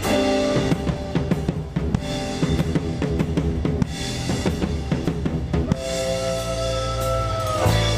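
Band music led by a drum kit, with rapid snare and bass-drum hits over bass and other instruments. About six seconds in, the band holds one long sustained note with fewer drum strikes, and it ends just before the close.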